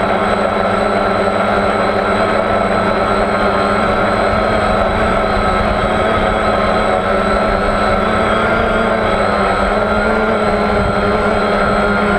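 Electric motors and propellers of a radio-controlled FPV model, heard up close from its onboard GoPro, running at a steady speed: a constant whine over a low rumble.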